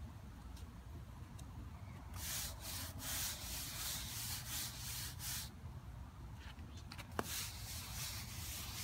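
A stiff-bristled push broom on a long pole scrubbing wet water-based stain into stamped concrete in repeated back-and-forth strokes. The strokes start about two seconds in, pause briefly, then go on, with one short sharp sound about seven seconds in.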